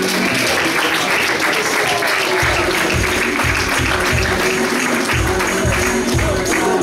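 Audience applauding over recorded music; a bass beat comes in about two and a half seconds in, at roughly two pulses a second.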